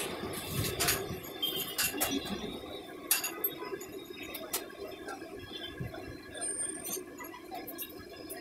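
Kachoris frying in a large karahi of oil, a faint steady sizzle, with a few sharp clinks over it; the loudest clink comes about three seconds in.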